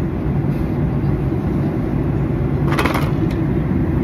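Airliner cabin in flight: a steady low drone of engines and airflow. About three seconds in there is a brief hissing rustle, followed by a small click.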